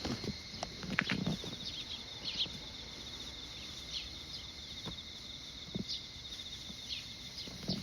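Insects trilling steadily in a fast pulsing rhythm, with a few short chirps and scattered soft footsteps, the heaviest about a second in.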